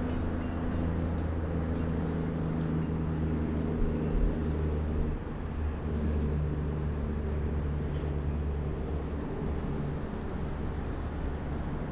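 A large engine droning steadily: a low hum of stacked tones whose pitch and strength shift a few times, over a wide background noise.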